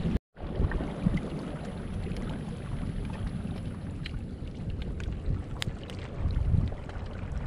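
Shallow seawater sloshing and lapping, with low wind rumble on the microphone and a few faint scattered clicks; the sound cuts out for a split second just after the start.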